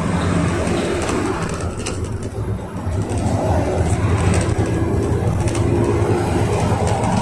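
Inside a GAZelle Next minibus under way: the steady low drone of its Cummins 2.8-litre four-cylinder diesel mixed with road and tyre noise, and a few light rattles from the cabin.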